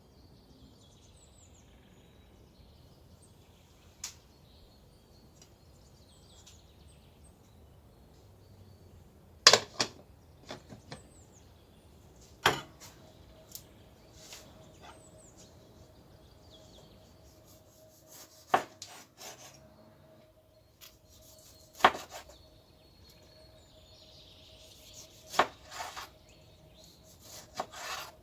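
Sharp knocks and clicks at irregular intervals, with birds chirping faintly and a faint steady hum coming in about halfway.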